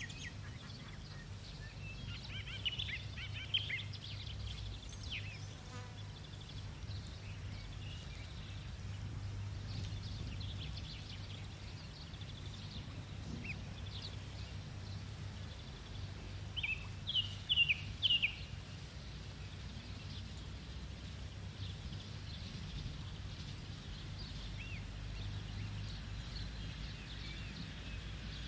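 Outdoor creek ambience: a low steady hum, with short bird chirps in two clusters, a few about two to four seconds in and a louder group about seventeen seconds in.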